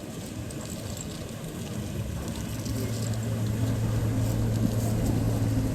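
Steady low engine hum over outdoor background noise, growing gradually louder from about halfway through.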